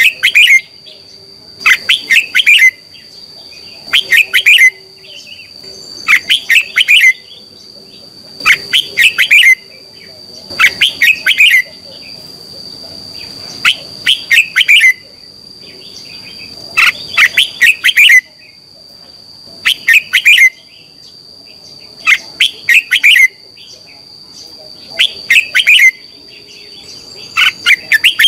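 Red-whiskered bulbul singing, a loud short song phrase repeated over and over about every two to three seconds. A steady thin high-pitched whine runs underneath.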